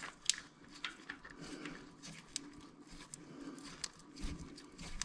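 Faint, irregular little clicks and scrapes of a gloved hand fumbling a new oil temperature sensor against the threaded hole in a Harley-Davidson Tri Glide's oil pan, the sensor not yet catching its thread.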